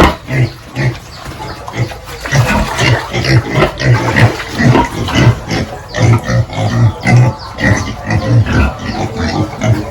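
Several pigs grunting, short calls overlapping in quick succession.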